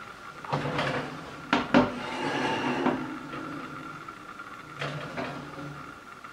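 Metal baking tray of baklava slid along an oven rack, scraping, with two sharp metal knocks about one and a half seconds in, then eased back in with a softer scrape near the end. A faint steady high hum runs underneath.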